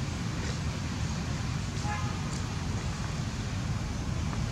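Steady low outdoor background rumble, with a faint short pitched sound about two seconds in.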